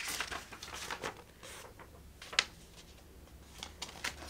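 Paper rustling as an instruction leaflet is handled and its pages turned, with one sharp click about two and a half seconds in and a few soft ticks near the end.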